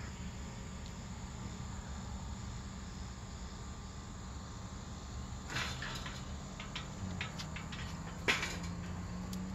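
Quiet outdoor ambience: faint steady insect chirring, as of crickets, over a low rumble. Light clicks and rustles come in the second half.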